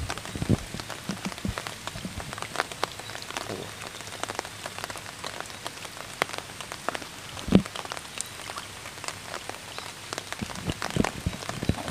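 Rain falling on the surface of a stream, many small irregular drops, with water moving around a person wading in it. One louder thump comes about seven and a half seconds in.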